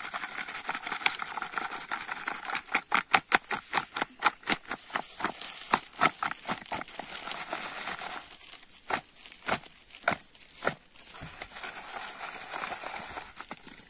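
Plastic bag crinkling as cassava flour is poured out, and fish pieces being tossed in flour in an aluminium bowl: a run of sharp, irregular clicks and rustles that thins out about two-thirds of the way through.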